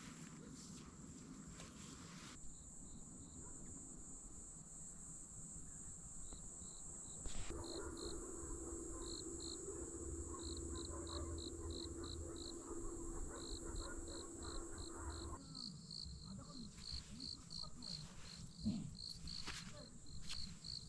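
Crickets chirping outdoors in short repeated pulses, over a steady high insect trill. A low steady hum joins about seven seconds in and stops about fifteen seconds in.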